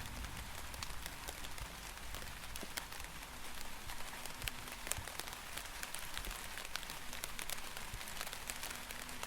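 Steady rain, with many individual drops pattering close by throughout.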